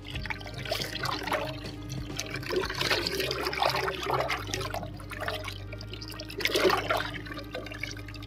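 Water splashing and sloshing as a batch of amla (Indian gooseberries) is washed by hand, rubbed in the water. It comes in several uneven surges, the loudest near the end.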